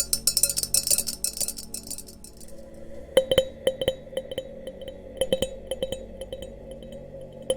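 Glass goblets being tapped and clinked together. The first two seconds are a dense flurry of fast, high, fine ticks. After that a glass rings with a sustained tone, renewed by sharp clinks at irregular intervals.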